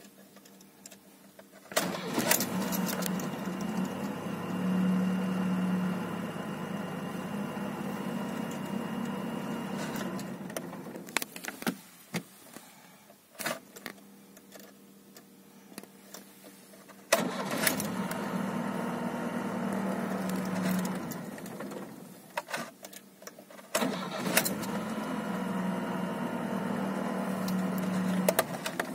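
GAZ car's engine being started three times in a row. Each attempt opens with a click and runs steadily for several seconds, about eight, then five, then five, before cutting off abruptly, with quiet gaps between.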